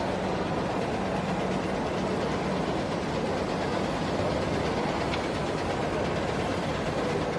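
Steady hum and whir of a running DTF printer line, its powder shaker and dryer with cooling fans, holding an even level with a constant low hum throughout, over a background din.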